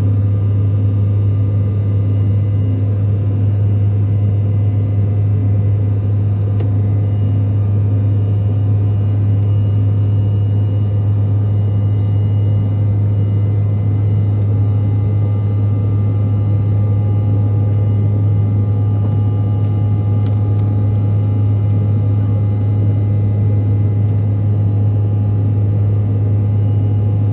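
Steady cabin noise of a CRJ-700's rear-mounted General Electric CF34-8C turbofans in the climb, heard from a seat near the tail: a strong, even low drone with faint steady engine tones above it.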